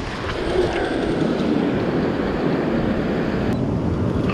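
Ocean surf washing up the beach, with wind rumbling on the microphone; the higher hiss drops away about three and a half seconds in.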